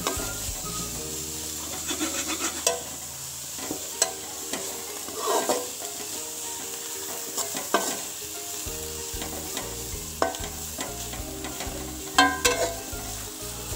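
Egg, capsicum and carrot stir-frying in a steel pan over high flame: a steady sizzle, with a spatula scraping and knocking against the pan every couple of seconds, the sharpest knock near the end.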